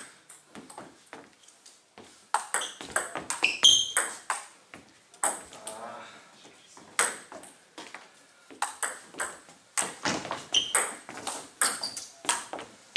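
Table tennis rallies: the ball clicking sharply off the bats and bouncing on the table in quick runs of ticks, pausing briefly between points.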